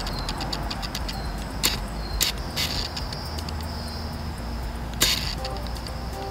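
Outdoor ambience: a steady high-pitched insect drone over a low rumble of distant traffic, with a few sharp clicks about one and a half, two, two and a half and five seconds in.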